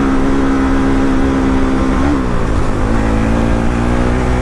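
Bajaj Pulsar NS200's single-cylinder engine under way, held at steady revs, with a brief rise and then drop in pitch about two seconds in before it settles again.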